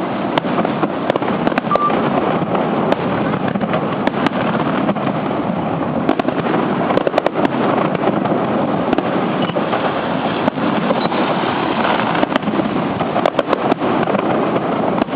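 Fireworks display: a dense, continuous barrage of bursts with many sharp cracks and crackles throughout.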